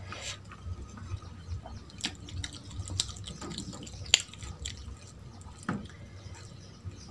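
Close-miked eating sounds: wet chewing and mouth smacks as rice and curry are eaten by hand, with fingers squishing and mixing rice on a steel plate. Scattered sharp clicks, the loudest about four seconds in.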